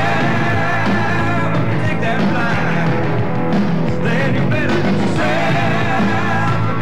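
Rock music soundtrack.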